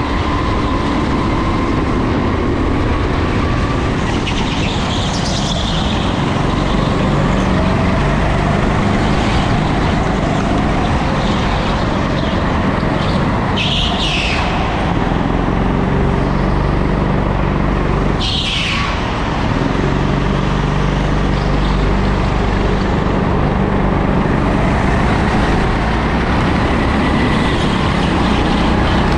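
Go-kart running at racing speed on an indoor concrete track, its motor note rising and falling through the corners over tyre and wind noise. Two brief high-pitched sounds stand out about halfway through.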